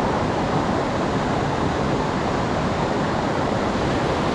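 Steady, even rush of running water, like a nearby waterfall or rapids.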